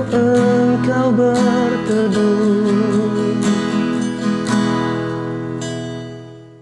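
Acoustic guitar strumming the closing chords of a song. The chords ring and die away toward the end.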